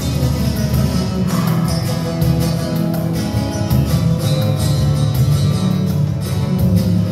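Flamenco guitar music in the tangos style, with rhythmic strummed chords and regular sharp strikes.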